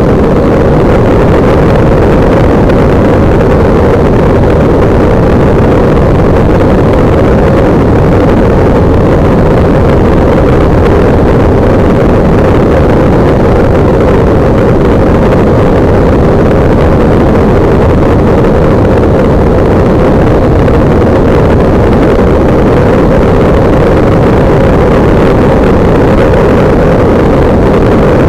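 Kolb Mark III ultralight's engine running steadily during the climb-out after takeoff, heard close up from under the wing with wind rush over the microphone.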